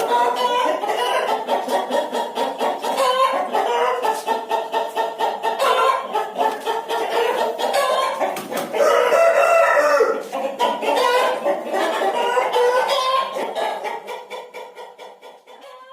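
Chickens clucking and a rooster crowing, fading out near the end.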